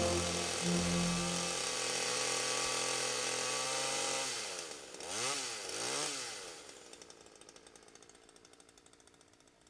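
Keyboard orchestral accompaniment holds its closing chord until about four seconds in. Then a chainsaw revs up and down twice and drops back to a pulsing idle that fades away.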